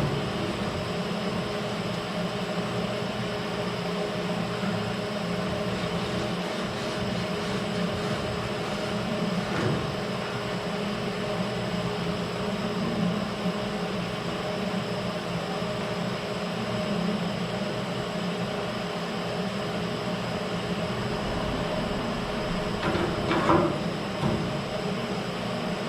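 Steady mechanical hum of a running machine, holding several steady tones. A couple of brief, faint knocks come near the middle and near the end.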